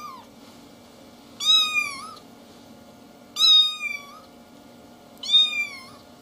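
A young kitten meowing: three high-pitched meows about two seconds apart, each dropping in pitch at its end, with the tail of another meow right at the start.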